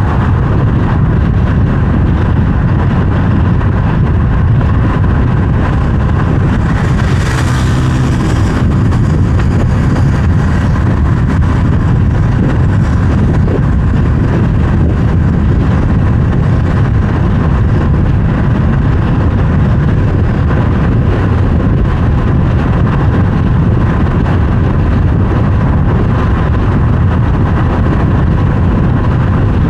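Car driving on a road: a steady low rumble of engine and tyre noise, with a brief brighter hiss about seven seconds in.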